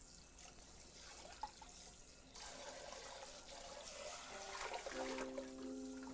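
Kitchen tap running into a sink, trickling water as a mixing bowl is rinsed.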